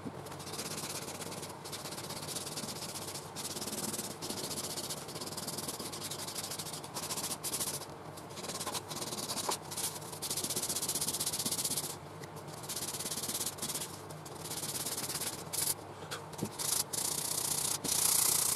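Hand sanding the edges of a small wooden vase with sandpaper: a scratchy rasping hiss in runs of back-and-forth strokes with short pauses between them, breaking and rounding off the sharp edges.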